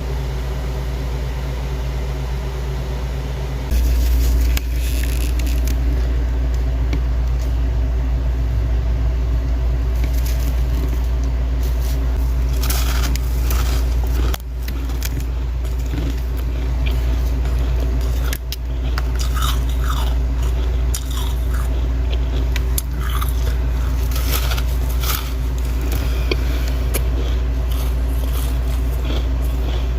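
Biting and chewing crunchy, powdery freezer frost close to the microphone: many irregular crisp crunches, starting about four seconds in, over a steady low hum.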